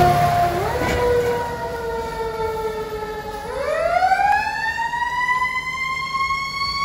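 Fire engine siren wailing as the truck pulls away. Its pitch slides slowly down, then winds back up from about halfway through, over a low engine rumble.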